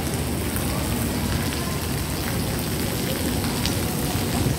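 Water pattering onto a wet floor: a steady wash of noise with scattered drips.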